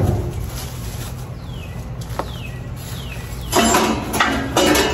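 Thin sheet-metal shroud on an air compressor rattling and scraping in several bursts as it is worked loose, starting about three and a half seconds in, after a single knock at the start. Three short falling bird chirps come in between.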